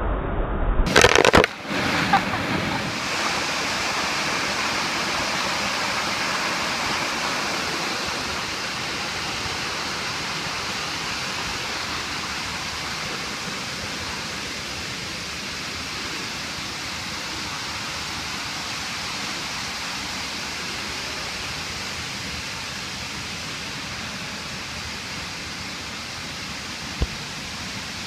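A splash into the waterfall's pool about a second in, then the steady rush of falling water, slowly getting quieter.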